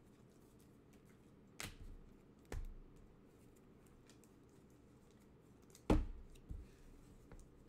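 Trading cards and packs being handled: a few scattered sharp taps and knocks, the loudest about six seconds in.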